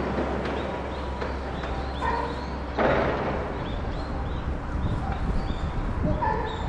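Chimpanzee whimpering: short, high-pitched crying calls repeated every few seconds, with a brief loud burst of noise about three seconds in.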